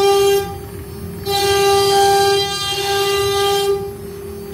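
CNC wood router's spindle whining as it carves a board: a steady high tone with overtones that swells louder briefly at the start and again for over two seconds from about a second in, as the bit cuts harder into the material.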